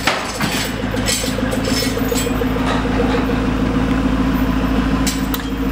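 David Brown Speedback GT's supercharged 5.0-litre V8 idling steadily, with a few light clicks.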